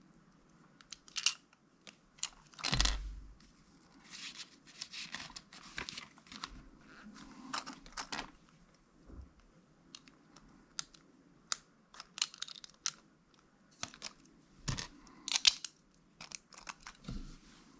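Plastic LEGO bricks being handled and pressed together: scattered light clicks and snaps with short rustles of pieces being picked through, several louder knocks about three, fifteen and seventeen seconds in.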